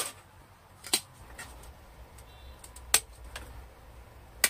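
Spring-loaded pruning shears snipping through thin Chinese juniper branches on a bonsai: about four sharp snips at uneven intervals.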